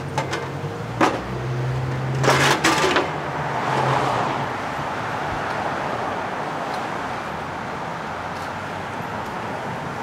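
A low steady hum, a short knock about a second in and a louder clatter of knocks between two and three seconds in, then the steady rush of city street traffic.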